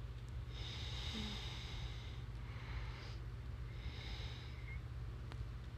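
A voice actor breathing audibly close to the microphone between whispered lines: three breaths, the first long, over a steady low hum.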